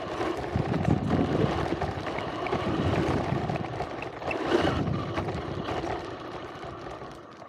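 RC car driving, heard from a camera mounted on the car: a steady motor whine mixed with tyre and road noise from the gravel and pavement, fading near the end.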